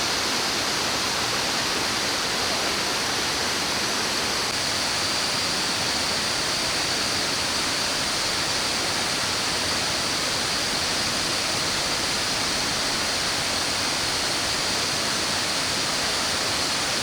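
Kuang Si Falls' lower cascades: water pouring down the tiered falls into the pools in a steady, unbroken rush, a good rainy-season flow.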